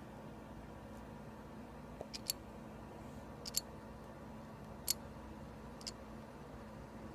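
Mexican jumping beans hopping inside a small clear plastic box, ticking against its walls as the moth larvae inside the seeds jerk. About half a dozen small sharp clicks, some in quick pairs, come over a few seconds above a steady low hum.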